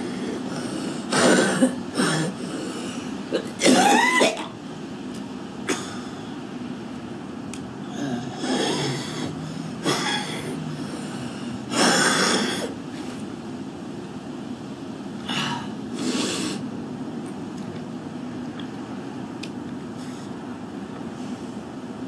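A woman's smoker's cough: repeated harsh coughs and throat clearing, a cluster in the first few seconds with the loudest fit about four seconds in, then single coughs scattered until about three-quarters of the way through.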